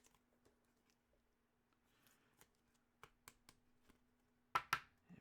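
Quiet handling of trading cards: faint scattered rustles and clicks, then two sharper clicks near the end, over a faint steady hum.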